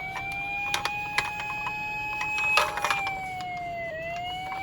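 A police-car siren wailing: its pitch rises slowly, falls a little past halfway, then rises again near the end. A few sharp clicks and a short clatter a little past halfway sound over it.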